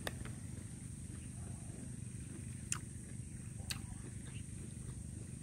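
Pomelo being chewed and its segments pulled apart by hand: a few faint, short crackles and clicks, the clearest about two and a half and three and a half seconds in, over a steady faint hum and a thin high-pitched whine.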